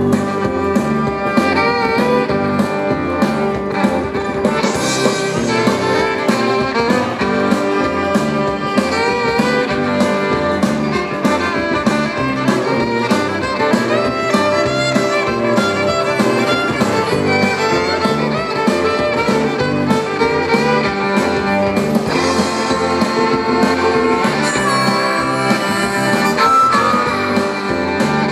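Live band playing an instrumental intro: fiddle and harmonica leads over strummed acoustic guitar, with a drum kit keeping a steady beat.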